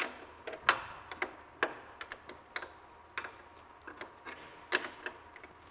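A series of irregular clicks and light knocks of hard plastic car grille parts being handled.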